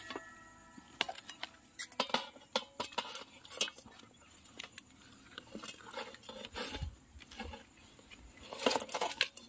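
Small fish dropping into an aluminium pot and a metal plate knocking against its rim: scattered light clinks and taps.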